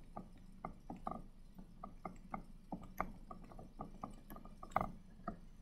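Stylus pen ticking and tapping on a tablet's writing surface while handwriting: a faint, irregular string of small clicks.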